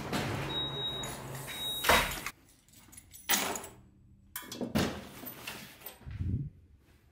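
Shop front door: two short high electronic beeps, then the door shutting with a loud knock about two seconds in, after which the outside noise is cut off. A few separate knocks and clunks follow near the middle and end.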